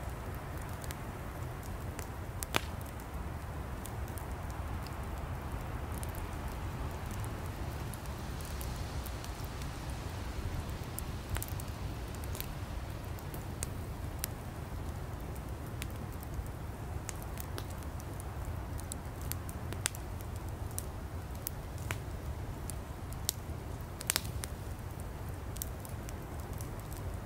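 Campfire burning: a steady low rumble of flames with scattered sharp crackles and pops from the firewood, a louder pop about two and a half seconds in and another near the end.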